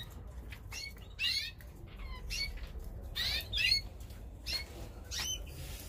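Caged finches in a canary and greenfinch breeding setup chirping: a string of short, high calls, several sweeping quickly up or down in pitch, about nine over the few seconds.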